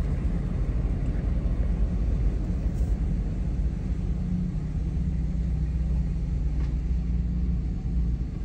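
Steady low rumble of a truck driving slowly, engine and road noise heard from inside its cab.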